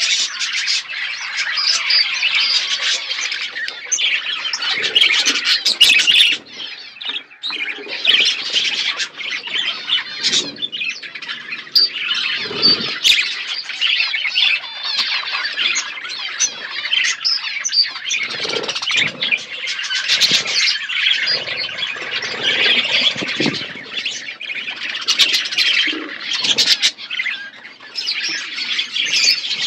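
A flock of budgerigars chattering, with many overlapping warbles, chirps and squawks.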